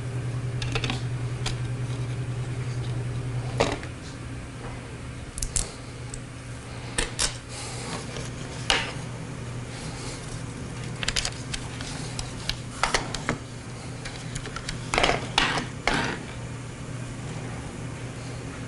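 Scattered clicks and knocks of plastic toy-blaster parts being handled, some in quick clusters, over a steady low hum that drops in level about four seconds in.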